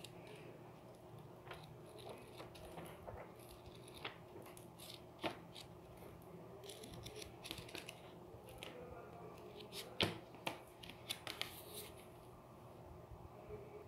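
Pages of a textbook being turned and flipped by hand: soft paper rustling with scattered sharp page flicks, the loudest about ten seconds in.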